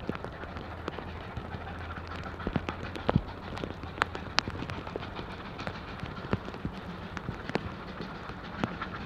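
Steady rain with irregular raindrop taps close by, over the distant sound of two steam locomotives working as they approach.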